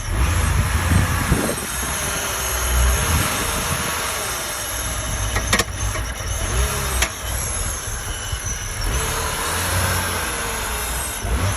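2003 BMW Z4 2.5i's 2.5-litre straight-six engine running with a knocking noise that the owner calls horrible and cannot identify. Two sharp clicks stand out, about five and a half and seven seconds in.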